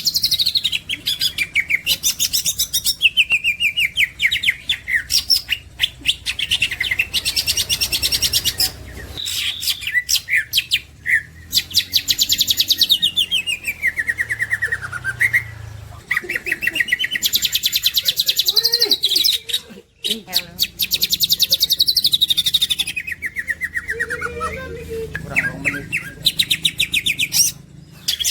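Cucak ijo (green leafbird) singing a long, varied song of very fast trills and chattering phrases. It is broken by short pauses and a few falling, sliding notes.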